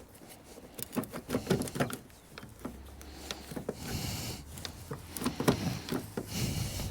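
Irregular clicks, knocks and scraping of plastic and metal as a Chevy Tahoe's rear door handle assembly is worked loose inside the door, still caught on its lever mechanism.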